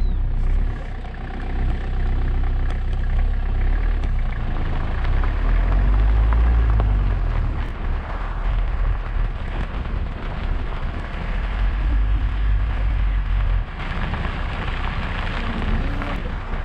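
Car driving along an unpaved dirt road: steady engine and tyre rumble. The level eases somewhat about 14 seconds in.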